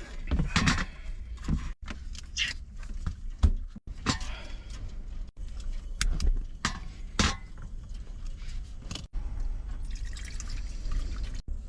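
Water pouring, splashing and dripping during cooking prep, with short knocks and clatters, over a steady low rumble.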